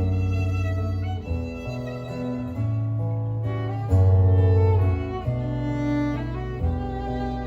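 Violin and guitar playing a slow instrumental duet: a bowed violin melody of held notes over deep, sustained low notes that change every second or so.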